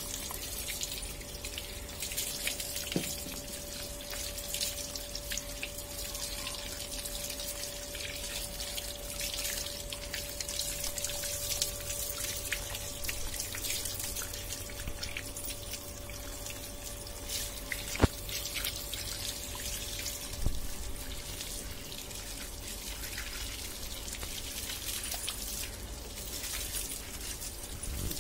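Tap water running in a steady stream and splashing onto a wet dog's coat and the concrete basin floor below, with hands rubbing through the fur. A faint steady tone is held underneath, and a single sharp knock about two-thirds of the way through is the loudest moment.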